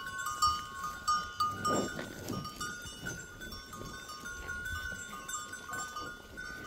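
A young calf snuffling and nosing at a hand close to the microphone, with a few soft breathy thumps in the first two seconds, over steady high-pitched ringing tones in the background.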